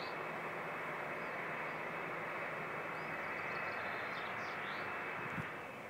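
Steady rushing noise at an airfield, with a few short rising-and-falling bird chirps over it and a single brief thump about five seconds in.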